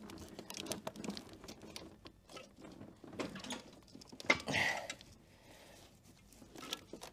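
Light knocks, clicks and scrapes of a Peugeot 306 HDi gearbox being lifted and slid on a jack toward the engine to engage the clutch, with one louder noise about four seconds in.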